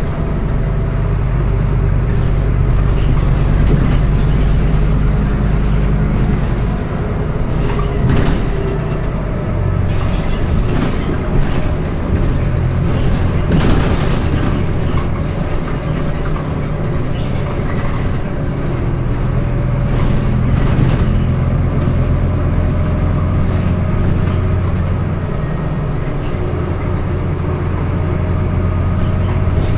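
Scania N320UB city bus's five-cylinder diesel engine running as the bus drives, heard from inside the passenger cabin, its note shifting several times, with a few short rattles of the body.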